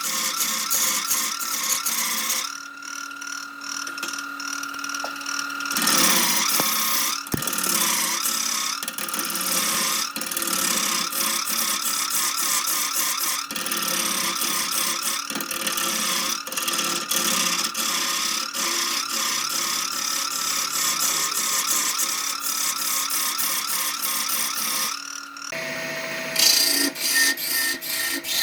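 Wood lathe running with a steady motor whine while a turning tool scrapes and cuts the spinning wood in rapid, dense strokes. The sound shifts abruptly a few times.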